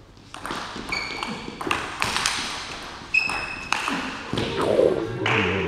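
Table tennis rally: the celluloid ball clicks sharply off the rubber-faced bats and the table top in quick succession, about two hits a second, some with a short ringing ping, echoing in a large sports hall.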